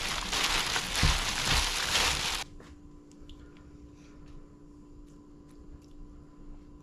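Plastic-gloved hands mixing raw striped bass laab with fresh herbs in a plastic bowl: a wet squishing and rustling. About two and a half seconds in it cuts off abruptly to a faint steady hum with a few small ticks.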